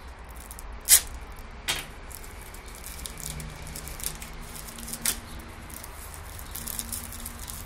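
Handling noise as a wallet is taken out of its packaging: rustling and crinkling with a few sharp clicks or snaps, the loudest about a second in.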